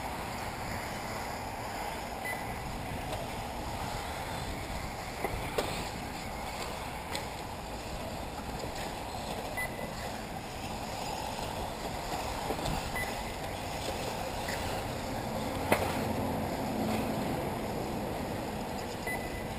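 Steady rushing outdoor noise, like wind on the microphone, with a few faint clicks and some brief high beeps.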